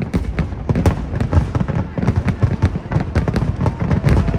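Fireworks bursting in rapid succession, a dense run of booms and crackles, several a second.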